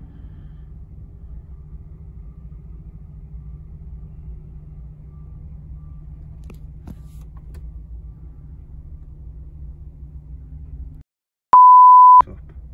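Steady low rumble of a lorry's idling diesel engine, heard from inside the cab. Near the end the sound cuts out and a loud, pure single-pitch bleep sounds for about half a second, like a dubbed-in censor bleep, before the rumble returns.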